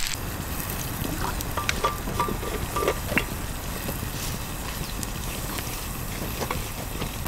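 Wood campfire burning, with scattered crackles and pops over a steady low rumble.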